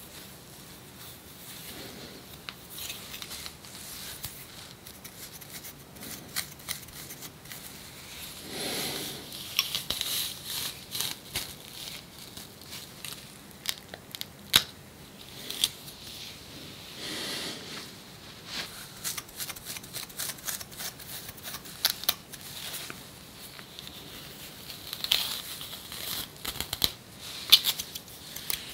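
Scratching and scraping on dry, flaky skin at the ear and nape, with irregular small clicks and rasps as seborrheic dermatitis dandruff flakes are scratched loose and lifted off. A few longer, louder scrapes stand out among the short clicks.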